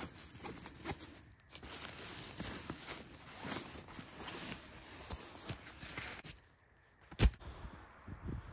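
Nylon straps, buckles and fabric rustling and clicking as a tent bag and foam sleeping pad are strapped onto a backpack. The handling stops about six seconds in, and shortly after comes a single sharp snap, the loudest sound.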